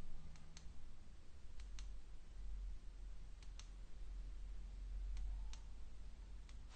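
Vg Sports 18-tooth single-speed bicycle freewheel, its six short pawls clicking as it turns slowly: a few separate light clicks, often in close pairs, spaced one to two seconds apart, with a low rumble underneath.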